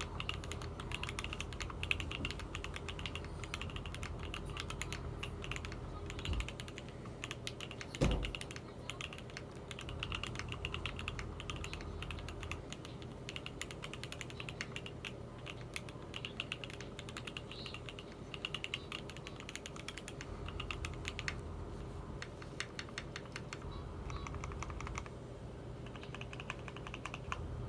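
Typing on a custom mechanical keyboard with stock NovelKeys Silk Yellow linear switches, GMK keycaps, modded screw-in stabilisers and a polycarbonate half plate in an aluminium Alf DC60 case: a continuous, uneven stream of keystroke clicks, with one louder knock about eight seconds in. A faint steady hum lies underneath.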